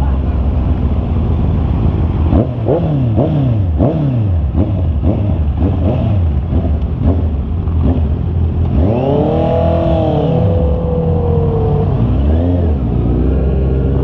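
Honda CB650R's inline-four engine under way, revving up and down again and again as the rider works the throttle, the pitch rising and falling repeatedly over a steady low drone.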